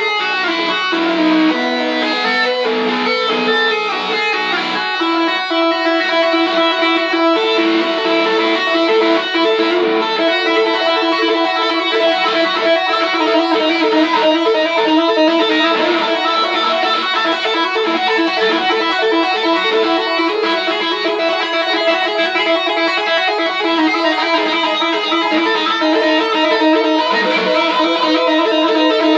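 Electric guitar played through a tape echo, a continuous run of quick single notes high up the neck.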